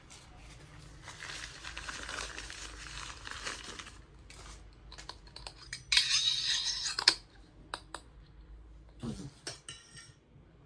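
Packaging rustling and crinkling as a miniature steel kitchen set is unpacked, with a louder burst of crinkling or tearing about six seconds in and a few sharp little clicks and taps near the end.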